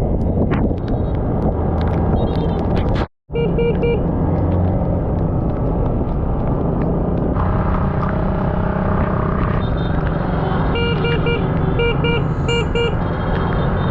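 Honda 150cc dirt bike engine running under way, with wind noise over it. Short runs of beeping come in about three seconds in and again near the end, and the sound cuts out for a moment about three seconds in.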